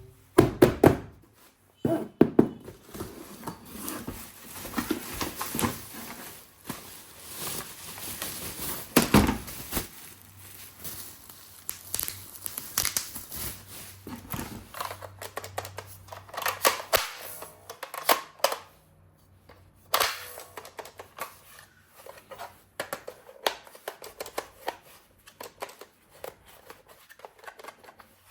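Toy packaging being opened and handled: cardboard and plastic tearing and crinkling, with scattered sharp clicks and knocks.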